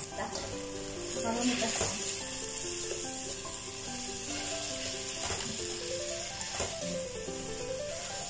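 Chicken pieces, onion and carrot sizzling in oil in a non-stick pot as they are stirred with a spatula, with a few scrapes of the spatula. A gentle background-music melody plays over it.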